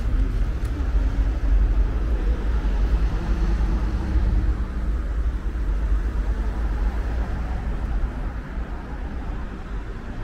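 City street traffic: motor vehicles running along the road with a steady low rumble, easing off slightly near the end.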